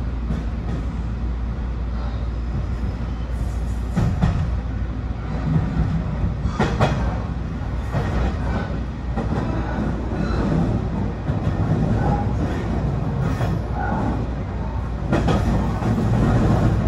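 BEC819 series DENCHA battery-electric train running steadily along the track, with the wheels knocking over rail joints a few times.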